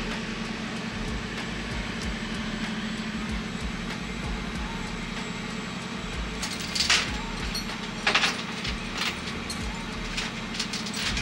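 Flatbed tow truck's engine idling steadily while tow chains are handled on the bed, with several sharp metallic clanks in the second half, the two loudest about a second apart.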